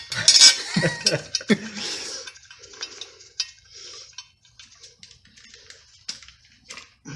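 Metal clinks and clatter of hand tools and parts being handled, busiest in the first two seconds, then scattered small clicks.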